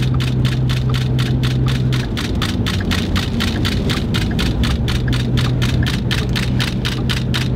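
Rain hitting the windshield and body of a moving vehicle, heard from inside the cab. It has a fast, even ticking about five times a second over a steady low hum.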